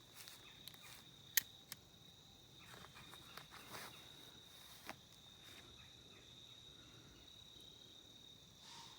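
Insects calling outdoors in a steady, faint, high-pitched drone, with a few soft clicks and handling noises in the first five seconds.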